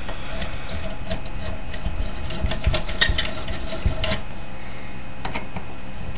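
Screwdriver turning out a long screw from a metal avionics module: low scraping and rubbing with small metallic clicks, and one sharper click about three seconds in.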